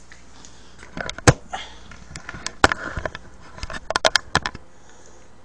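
Handling noise as the webcam is picked up and repositioned: a string of sharp clicks and knocks, the loudest about a second in.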